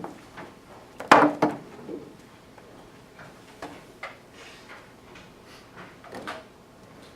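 Handling noise on a table: a loud clatter of several quick knocks about a second in, then scattered small clicks and taps.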